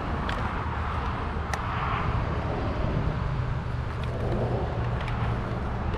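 A car engine running with a steady low hum, with a few light clicks over it.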